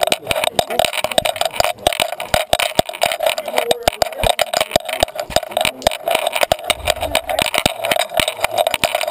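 Dense, irregular knocking and rubbing from a GoPro camera on a Great Dane's collar, jostling against the collar and the dog as he walks.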